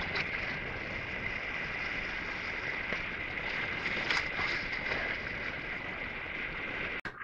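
Sea water washing steadily against the rocks of a breakwater, with wind on the microphone. The sound cuts out briefly near the end.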